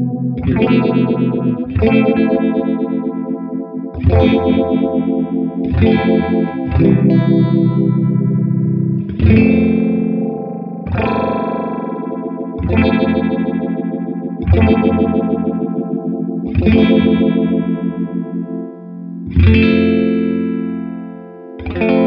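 Electric guitar strumming chords through a Mattoverse Just A Phase phaser pedal, a new chord struck about every two seconds and left to ring. The phase effect sweeps through each chord.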